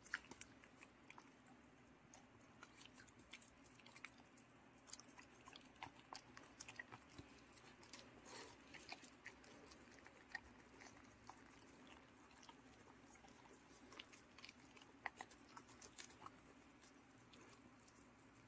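Dogs chewing and smacking their mouths as they eat soft pieces of steamed sweet potato from a hand: faint, irregular small clicks and smacks.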